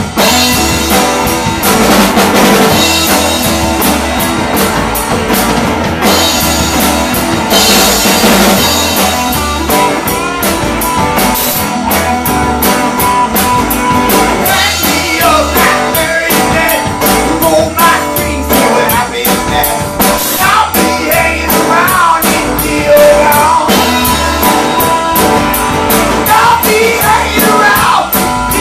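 Live band playing loud through a PA: a drum kit keeping a steady beat under electric and acoustic guitars, with singing.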